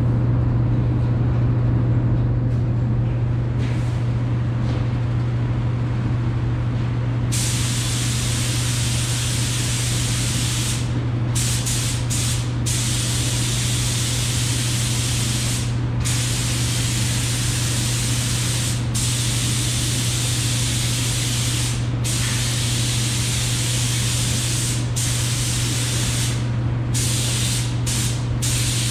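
Air-powered gravity-feed spray gun hissing as it lays down a coat of John Deere green paint. The hiss starts about seven seconds in and stops for short breaks between passes. A steady low hum runs underneath.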